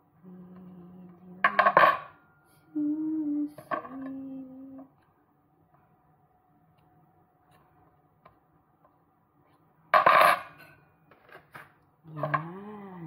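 A metal fork clinking and scraping against a glass bowl in two short bursts, about a second and a half in and again about ten seconds in.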